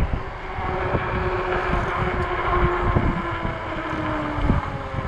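Electric fat-tire bike's hub motor whining steadily, dropping slowly in pitch near the end as the bike slows, over a low rumble of wind on the microphone and tyres on pavement, with a few light knocks.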